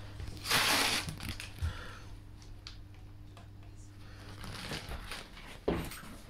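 Rustling handling noise with a few light clicks: a louder rustle about half a second in and a sharp knock near the end, over a faint steady low hum.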